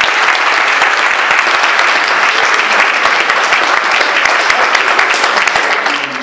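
A roomful of people applauding, dense clapping that dies away near the end.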